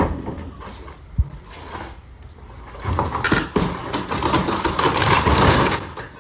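A sharp knock and a dull thud, then about three seconds of dense clattering and scraping as wood and metal demolition debris is moved.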